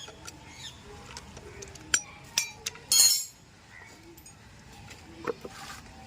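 Metal tools and motorcycle parts clinking and knocking during workshop repair work, with a short sharp hissing burst about three seconds in.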